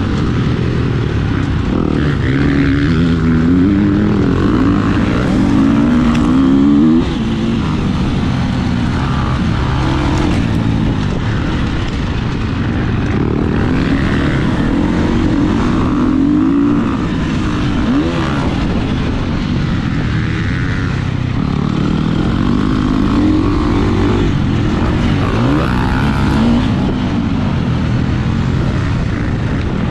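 KTM 350 SX-F single-cylinder four-stroke motocross bike engine, heard from on the bike, revving up and falling back again and again as the rider accelerates and shifts through the turns.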